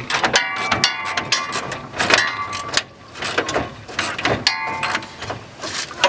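Hand tools working on bolts in a car's engine bay: a series of irregular sharp metallic clicks and clinks, with brief ringing tones.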